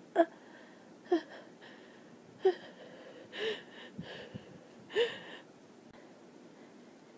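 A fit of allergic sneezing: five short, sharp sneezes in quick succession, about a second apart over roughly five seconds. The fourth is softer and longer than the others.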